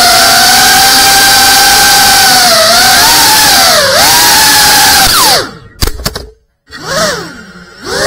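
GEPRC Cinelog 35 cinewhoop's brushless motors whining in flight, the pitch dipping and swinging as the throttle changes. About five seconds in the whine falls away to near silence with a couple of sharp knocks, as the motors cut and the drone drops to the floor. After a short blip of throttle, the motors spin back up near the end.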